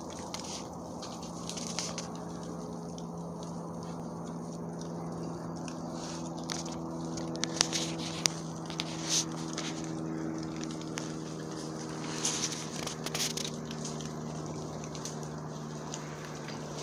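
Feral hogs rooting and feeding in dry leaf litter and brush: rustling and crunching, with a cluster of sharp cracks around the middle and more a few seconds later, over a steady low hum.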